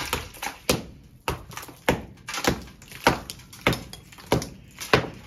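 Hammer striking old plaster on a wall to knock it off, about nine even blows a little under two a second, each a sharp knock.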